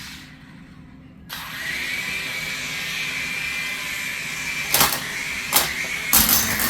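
Toy RC mini helicopter's small electric motors and rotors whining steadily in flight. The whine sinks almost away at the start, spins back up about a second in and holds level. A few sharp knocks come near the end.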